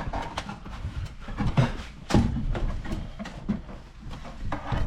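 Footsteps with scattered knocks and thumps, uneven in timing.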